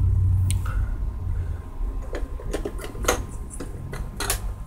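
Plastic clicks and rattles of a cassette being handled in the open tape deck of a JVC boombox and the cassette door being pushed shut, a handful of sharp clicks over a low rumble that fades in the first second or so.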